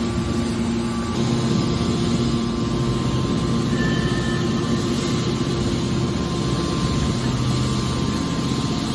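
Hydraulic aluminium-can scrap baler running: a steady machine hum with low tones held throughout, a little louder from about a second in.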